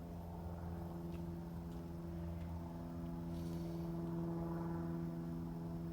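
Steady hum of a running motor, even in pitch throughout, with a low wind rumble on the microphone.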